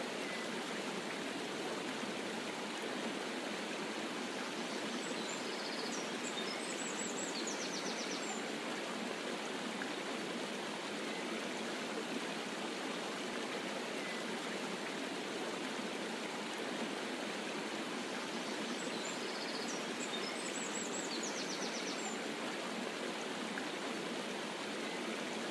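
Waterfall: a steady rush of falling water, even and unbroken. A faint high twittering sounds twice, about fourteen seconds apart.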